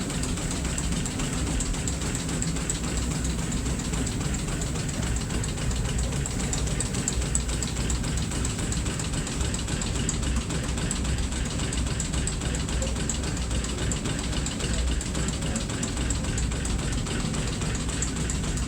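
Steamboat's steam engine running steadily, with a continuous fast mechanical clatter from its moving parts.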